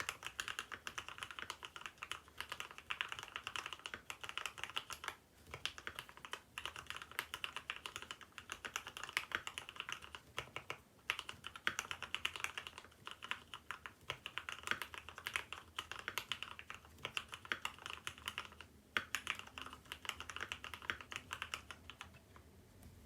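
Mechanical keyboard being typed on steadily: a fast run of sharp key clicks with a few brief pauses, stopping just before the end. The plate foam has been removed, so the board rings more, giving a plinky sound likened to dripping water drops.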